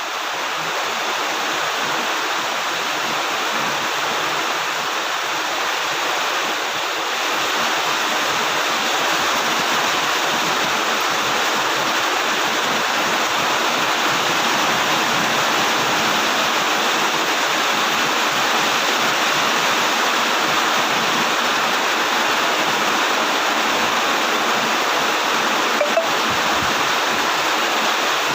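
Heavy rain falling steadily, a dense even hiss of drops, with one brief tick near the end.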